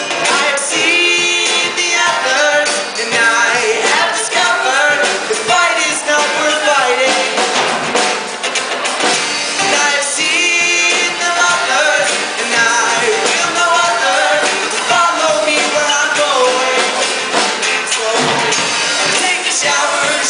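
Music: a song with a sung vocal line over instrumental backing.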